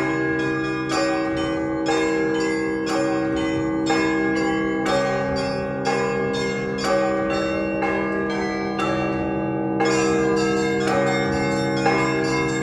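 Russian Orthodox festive church bell ringing. Several bells of different sizes are rung together by clapper: the small bells strike in a quick repeating pattern over heavier strikes about once a second. A deep bell's hum fades away about a second in and comes back near the end.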